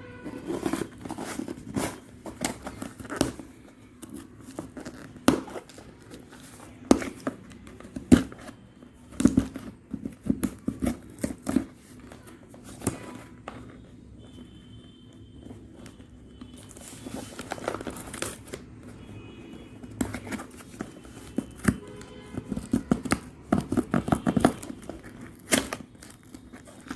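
A smartphone box's plastic wrap and seal being slit with a key and torn open by hand: irregular scraping, tearing and crinkling with scattered sharp clicks.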